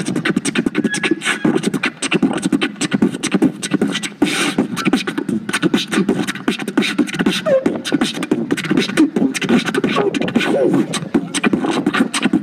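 Beatboxing: a fast, unbroken run of percussive mouth sounds (kicks, clicks and snares) over a low hum.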